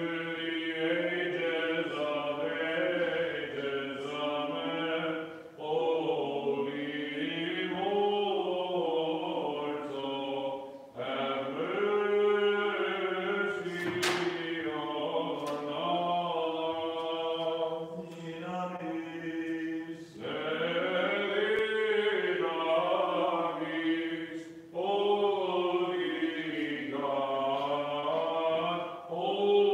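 Byzantine chant sung by a church chanter: long melismatic phrases that rise and fall, broken by brief breaths, with a low note held steady beneath the melody.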